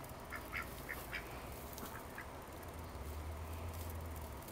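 White crested duck giving quiet, short quacks, several in quick succession in the first second and a half and a few more later, with a low steady rumble starting about three seconds in.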